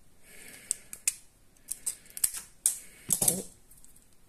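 Pliers clicking and scraping against the metal top cap of a fake 18650 lithium cell as it is gripped and twisted to pry it open. There are about a dozen sharp clicks, with a louder knocking cluster about three seconds in.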